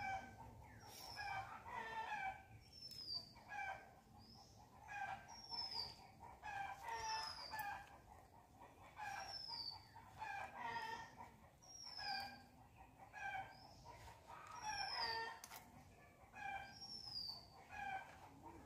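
Chickens clucking and calling, with short high falling chirps repeating about once a second.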